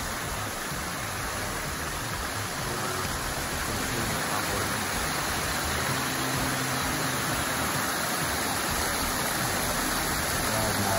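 Small woodland waterfall: stream water cascading over rocks into a shallow pool, a steady rushing splash that gets slightly louder about four seconds in.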